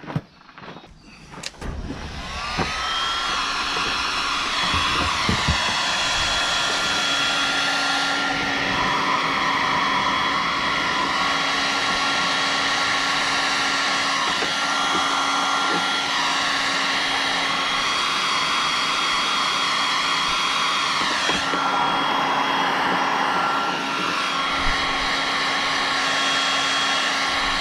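Electric heat gun starting up about two seconds in with a rising whine, then running steadily with a fan hiss and a high whine, shrinking heat-shrink tubing over crimped wire joints. Its pitch dips briefly once about two-thirds of the way through.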